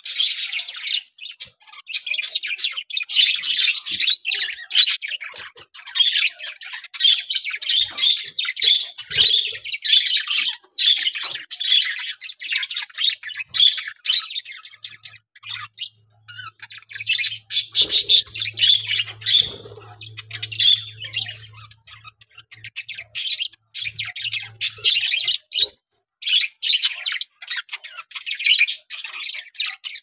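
A flock of budgerigars chattering and squawking together, a dense, unbroken stream of quick calls with brief lulls about halfway through and again near the end.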